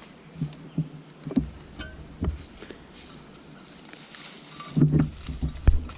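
Irregular knocks and thumps, a few spaced through the first couple of seconds, then a cluster of louder thumps about five seconds in with one sharp, loudest hit near the end; no chainsaw running.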